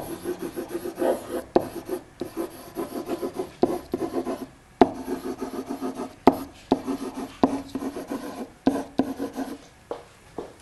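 Pen writing by hand on an interactive whiteboard: a run of short rubbing, squeaking strokes with sharp taps as the pen touches the board.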